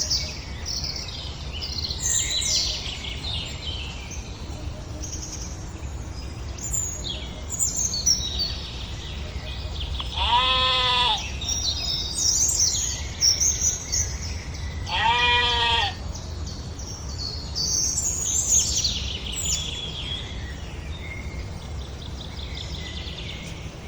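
Farmyard ambience: birds chirping throughout over a steady low hum, with two bleats about five seconds apart near the middle, each lasting about a second.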